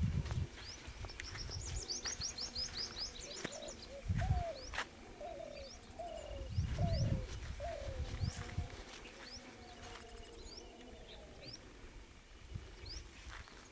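Several birds calling outdoors: short high chirps throughout, a quick run of high notes about two seconds in, and a string of lower falling coo-like notes in the middle. A few bursts of low rumble on the microphone, at the start and around the middle, are the loudest sounds.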